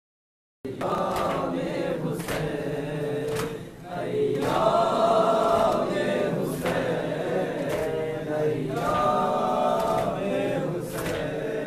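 A group of men chanting a Shia mourning lament (noha) together, with a lead voice over a microphone, cut through by occasional sharp hits. The sound drops out completely for about the first half second.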